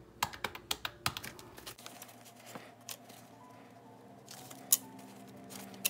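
A quick run of calculator key taps in the first second, then the soft rustle of paper banknotes being handled, with faint background music of held notes underneath.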